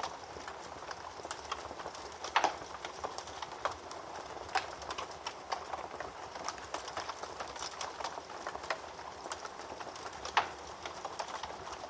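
Wood fire in a fireplace crackling: a steady soft hiss with many irregular snaps and pops, two of them louder, about two seconds in and near the end.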